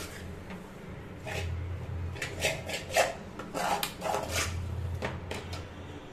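Steel spoon scraping and stirring soaked sabudana pearls around a small aluminium pan, a run of irregular scrapes against the pan's metal.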